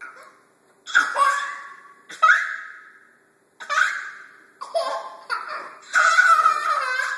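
Two young brothers laughing in about six bursts, the last one the longest.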